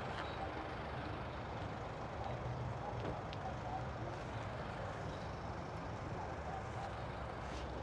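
Steady low engine rumble of a nearby motor vehicle, holding level throughout.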